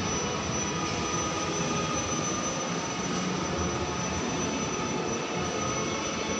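Steady rushing background noise of a large exhibition hall, with a thin, steady high tone running through it.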